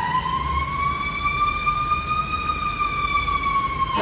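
Fire engine siren wailing at a high, held pitch that creeps up slightly and then begins to sag near the end.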